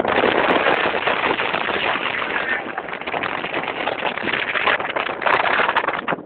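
Wind buffeting the microphone on a motorboat running at speed: a loud, rough, fluttering rush of noise.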